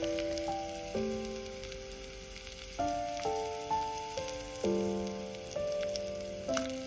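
Hot oil sizzling as onion pieces fry with whole spice seeds in a miniature wok, with small crackles. Background music of held notes changing every second or so plays over it and is the louder sound.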